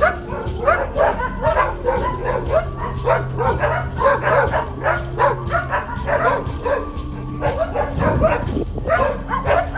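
Several dogs barking nonstop, short sharp barks and yaps overlapping each other in a rapid chorus, over a steady low hum.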